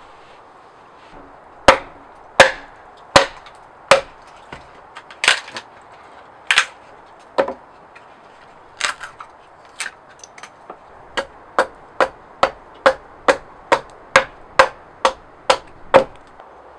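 Hatchet chopping a piece of wood on a chopping block. Four heavy blows about three-quarters of a second apart, a few scattered ones, then a quick even run of about a dozen lighter strikes, a little over two a second.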